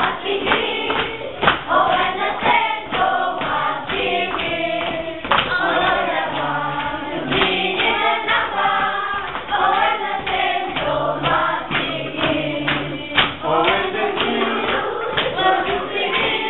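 A group of children singing a song together, with frequent sharp percussive hits through it.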